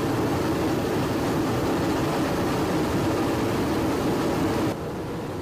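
A steady engine drone, with no clear pitch, that drops in level about four and a half seconds in.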